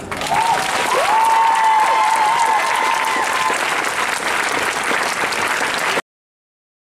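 Crowd applauding, with a long, wavering, high-pitched cheer held over the clapping for the first few seconds. It cuts off suddenly about six seconds in.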